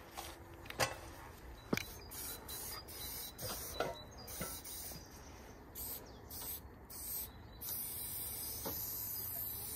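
Aerosol spray paint can hissing in several short sprays, then a steady spray over the last couple of seconds, with a few light clicks in between.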